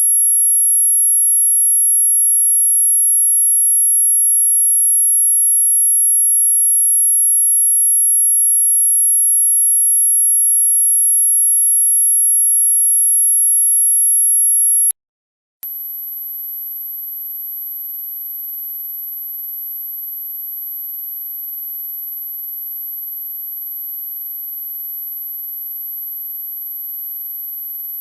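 Dog whistle sound effect: steady, very high-pitched electronic pure tones. Two close tones sound together until about halfway through, break off, and after a short gap a single, quieter high tone starts and holds steady.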